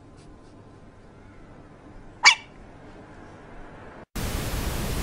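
A sleeping puppy gives one short, high yelp in its sleep about two seconds in. Near the end a burst of TV-static hiss cuts in.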